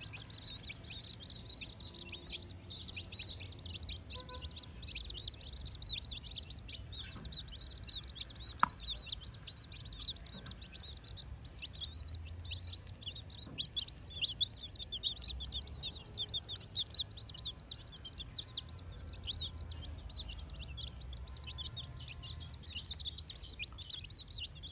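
A flock of domestic chicks peeping continuously: many quick, high, falling peeps overlapping one another. A single sharp tap stands out about nine seconds in.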